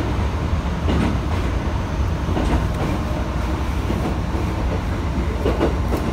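Passenger train running at speed, heard from inside the carriage: a steady low rumble with a few sharp clicks of the wheels over rail joints.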